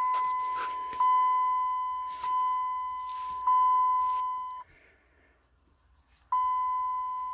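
The 2002 Dodge Ram 1500's dashboard warning chime sounding at key-on: a high, steady tone re-struck about every second and a quarter, fading a little between strikes. It stops a little past halfway through, and one more tone comes near the end.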